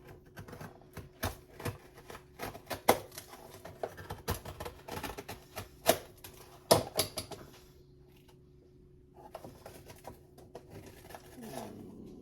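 Spoon tapping and scraping in a measuring cup while packing brown sugar: a quick run of sharp clicks and taps, the loudest about three, six and seven seconds in, then fainter handling.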